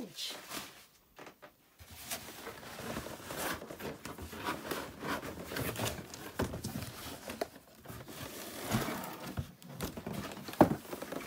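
Cardboard rustling and scraping as a large cardboard gift box is slid out of its shipping carton, with scattered small knocks and one sharp click near the end.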